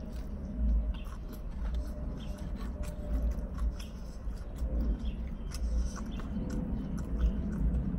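A person biting into a soft taco and chewing with the mouth full, with many small wet mouth clicks and smacks. A steady low rumble runs underneath.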